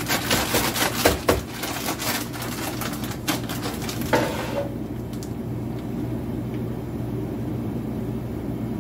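Kitchen items being handled for about four seconds: clatter, knocks and rustling as a container of brown sugar is got out and opened. After that a steady low hum goes on alone.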